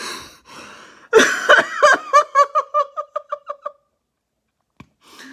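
A person laughing hard: a loud burst about a second in runs into a quick, even string of high-pitched 'ha' pulses that trails off after a couple of seconds, followed by a pause and a single click.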